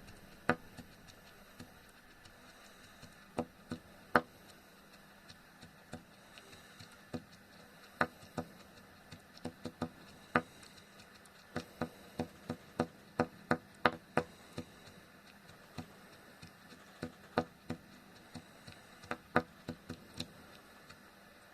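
CPAP machine making an abnormal noise: sharp clicks at irregular intervals, some in quick runs of several, over a faint steady hum.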